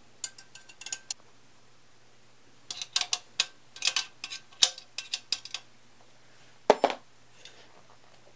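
Irregular metal clicks and clinks of a hand tool working the mounting bolt on a steel bike seat bracket, a few at first and then a quick cluster, followed by one heavier clunk about seven seconds in.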